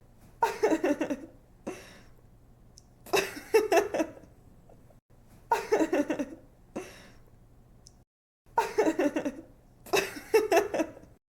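A young woman laughing in short giggly bouts of quick breathy pulses, repeated several times a few seconds apart, with a faint low hum between the bouts.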